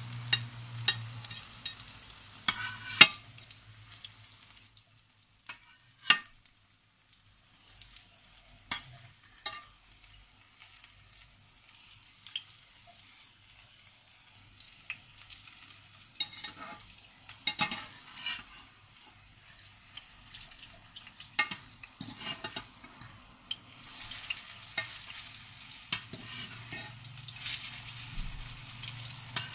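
Zucchini fritters sizzling in shallow oil in a frying pan, with the scrape and clink of a metal fork and slotted spatula against the pan as they are turned over one by one. The sizzle grows louder near the end as freshly turned sides hit the oil.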